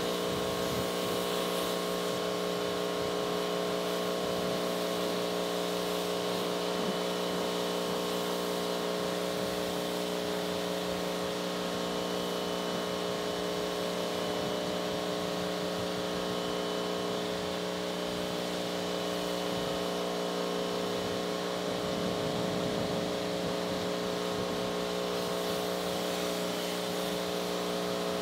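Pressure washer running with a steady, unchanging hum, its wand spraying water over a car's bodywork with a constant hiss.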